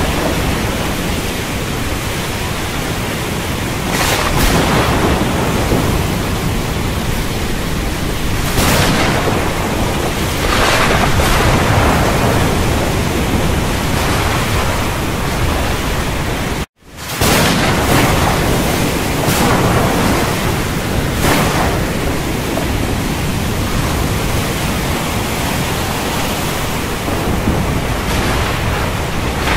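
Thunderstorm soundscape: a steady, loud rush of storm noise with thunder rolling up several times. It cuts out for a split second about seventeen seconds in, then resumes.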